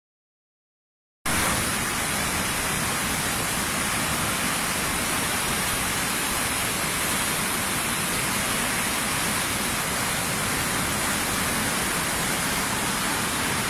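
Steady rush of a river swollen with floodwater, starting abruptly about a second in.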